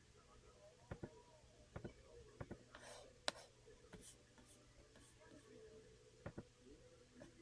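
Slow, irregular keystrokes on a Corne split mechanical keyboard, single key presses roughly once a second, one louder click a little past the middle. A brief soft hiss comes just before that louder click.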